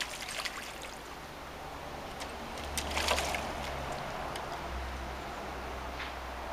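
Ferruginous hawk bathing in a shallow tub of water: splashing and water flicked by its wings and body, with the loudest splash about three seconds in.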